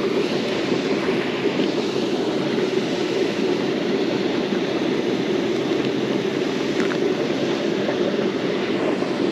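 A steady, even rushing noise with no rhythm and no breaks, the noise the angler wants to move away from.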